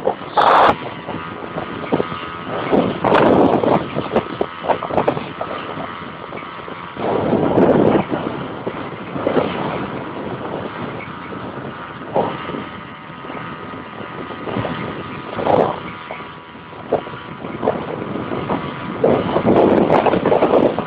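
Strong storm wind buffeting the microphone: a steady rushing noise that swells into loud gusts several times.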